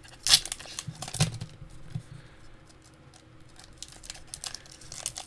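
Foil wrapper of a Pokémon booster pack crinkling and crackling as it is handled in the fingers, with two louder crackles in the first second or so and lighter rustling after.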